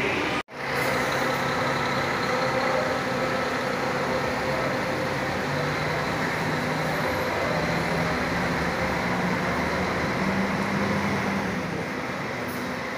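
Diesel engine of a Brasil Sul intercity coach pulling away from a bus-station bay, its note rising in a few steps as it accelerates, over a steady din of idling buses and traffic.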